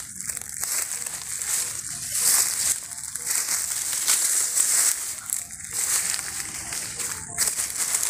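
Footsteps crunching and rustling through a thick layer of dry bamboo leaves, in uneven steps.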